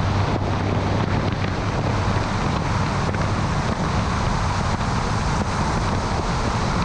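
Wind rushing over the microphone of a camera mounted on the hood of a vehicle driving at road speed, mixed with tyre and road noise: a steady, even rush with no change.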